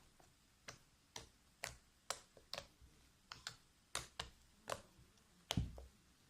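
About a dozen short, sharp clicks or taps at uneven intervals, roughly two a second, the last one the loudest with a low thud.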